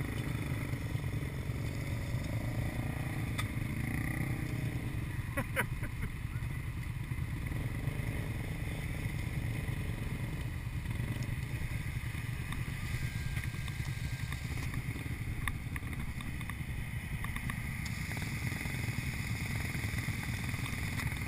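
ATV engines running steadily at low throttle, a continuous low rumble, with a few sharp knocks about three and a half and five and a half seconds in.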